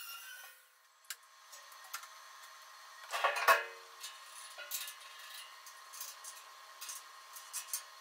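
Steel JCB Q-fit loader bucket being shifted by hand, giving scattered metal knocks and scrapes with one loud clank about three seconds in. A tool's steady noise dies away in the first second.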